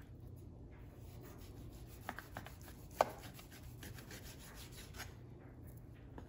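Kitchen knife slicing through a smoked venison roast on a plastic cutting board: faint repeated scraping and clicking strokes of the blade, with one sharp click about three seconds in.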